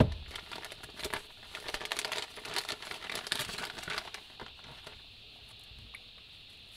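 Clear plastic bag crinkling and rustling as it is handled and opened to take out a fabric pouch, with a thump right at the start. The crinkling runs for about the first four seconds, then dies away.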